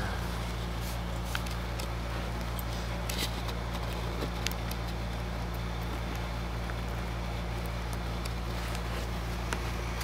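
Steady low background hum with a few faint, light clicks scattered through it.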